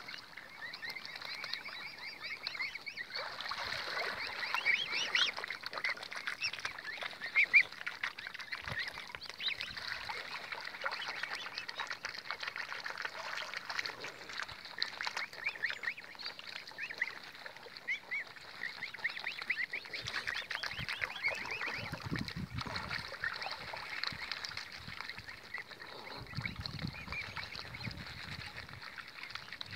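A flock of waterfowl calling continuously, many short calls overlapping.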